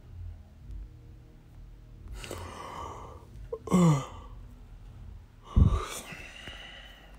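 A person breathing and sighing: a breath about two seconds in, a short voiced sigh falling in pitch near the middle, then a low bump and another breath about a second and a half later.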